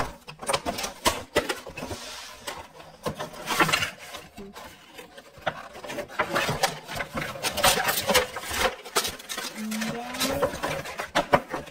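Cardboard gift box with a clear plastic window being handled and unpacked: irregular rustling, crinkling and light knocks of the packaging as the card insert is pulled out and the box is tipped.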